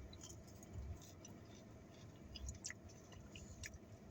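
Faint chewing with scattered small wet mouth clicks as someone eats, over a low steady rumble.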